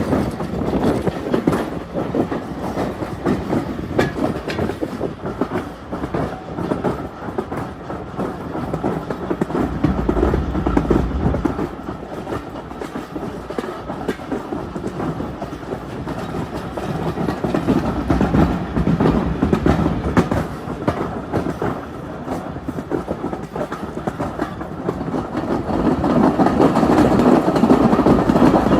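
Heritage steam railway carriage on the move, heard from on board: a steady rumble of the running train with wheels clicking over the rail joints, growing louder near the end.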